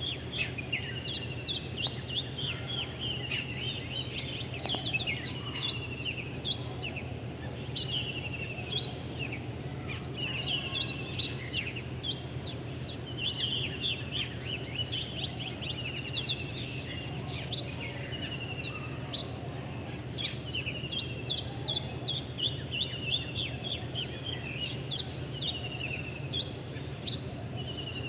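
Many small birds chirping continuously: dense, overlapping short chirps and quick up-and-down notes, over a steady low hum.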